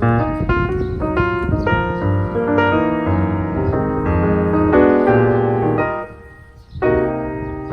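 Background music: a piano-led tune with a steady rhythm, pausing briefly about six seconds in.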